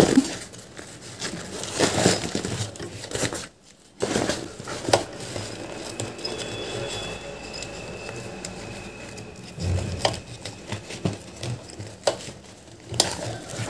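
Rustling and crinkling of waterproof bag fabric being handled and pushed into place under a sewing machine's presser foot, with scattered light knocks and clicks.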